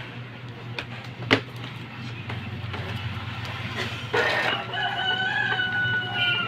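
Epson L3150 inkjet printer running its power-on cycle, the print-head carriage moving with a sharp click about a second in and no banging. From about four seconds in, a rooster crows once, a long call that falls slightly in pitch and is the loudest sound.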